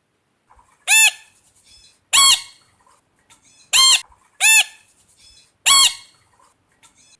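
Parrot squawking: five short squawks at uneven intervals, each rising and then falling in pitch.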